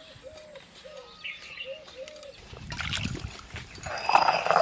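A stone roller grinds on a flat stone slab (sil-nora), starting about four seconds in with a loud, rough rasping scrape. Before it come a few faint, short whining calls from an animal.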